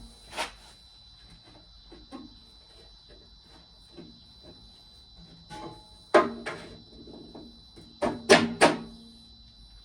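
Metal clanks and knocks as a hydraulic cylinder and its pin are worked into place on the mini skid steer. The knocks are scattered, with one about half a second in and a loud one at about six seconds. Three sharp, ringing strikes come close together near the end.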